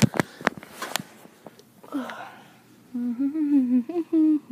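A person humming a tune in short stepped notes, starting about three seconds in. Before that, a burst of clicks and rustling from the phone being handled.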